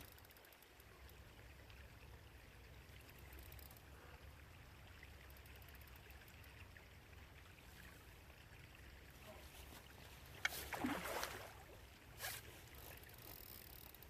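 Faint riverbank ambience: a steady low rumble under a soft wash of flowing water. About ten and a half seconds in there is a sharp click followed by a brief rustle, and another short noise comes about a second later.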